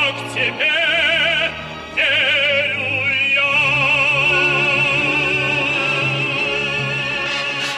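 Operatic solo singing with orchestral accompaniment. The voice sings with strong vibrato and holds one long note from about two seconds in until near the end.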